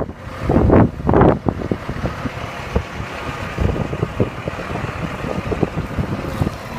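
Tractor engine running steadily while its hydraulic rear tipping bucket empties a load of soil, with small ticks of falling dirt. Wind gusts buffet the microphone in the first second and a half.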